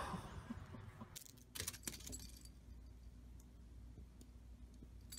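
Quiet background hum with a few faint clicks about one and a half to two seconds in.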